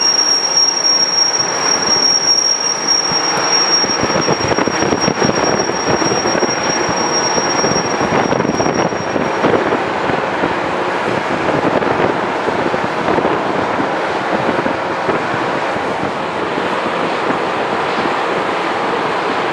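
Loram rail grinder train at work: a loud, steady, harsh grinding of the grinding stones against the rail, with a thin high whine on top that stops about halfway through.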